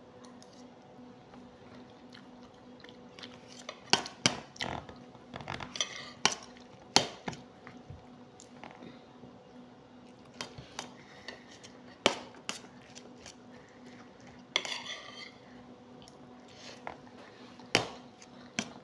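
Metal spoon clinking and scraping against a plate in scattered sharp clicks at irregular intervals, with soft chewing in between.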